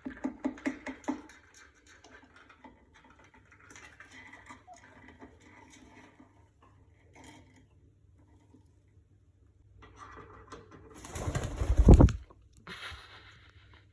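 Indian ringneck parakeet vocalizing, with a quick run of repeated notes in the first second and softer chatter after. About eleven seconds in comes a loud burst of rustling noise lasting about a second, louder than the bird, then a short hiss.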